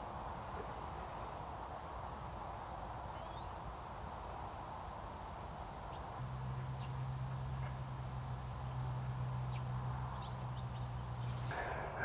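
Outdoor ambience with a few faint, brief bird calls scattered through it. A low steady hum comes in about halfway through and stops just before the end.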